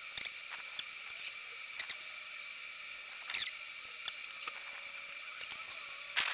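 Makeup being applied to a face: scattered small clicks and a few short scratchy brush and pencil strokes, over a steady faint hiss with a thin high whine.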